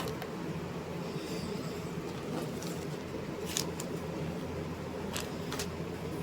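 Steady low hum of room noise, such as a fan or air conditioner, with a few scattered sharp clicks and taps.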